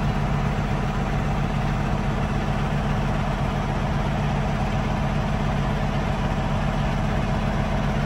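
Truck engine idling steadily, a low, even hum.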